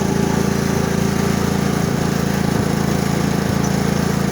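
Riding lawn mower's engine running steadily as the mower drives along, towing a loaded trailer.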